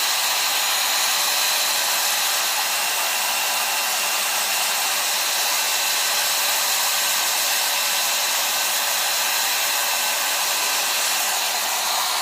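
Handheld hair dryer running steadily, blowing air with an even rushing hiss and a faint steady whine.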